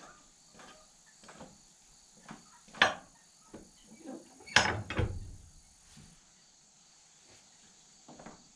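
Railroad jack being pumped by its lever handle: a run of light ratchet clicks with two loud metal clanks about three and five seconds in, as it pushes a leaning shed wall over. Insects drone steadily in the background.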